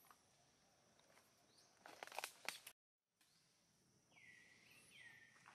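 Near silence with faint outdoor background. A few sharp clicks come about two seconds in, and near the end there are two short high chirps that drop in pitch and then hold.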